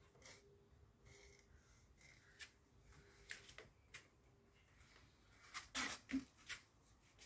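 Quiet taps and scrapes of a paintbrush working paint on the palette and canvas, with a short cluster of louder clicks about six seconds in.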